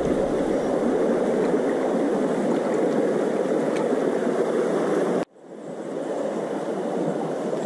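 Shallow stream water running and gurgling close to the microphone, a steady noise. About five seconds in the sound cuts out suddenly and fades back in.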